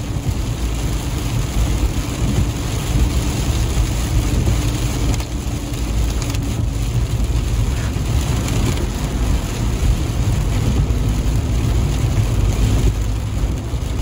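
Steady cabin noise of a car driving on a wet road in rain: a low rumble of engine and tyres, with rain hitting the windscreen and body as an even hiss.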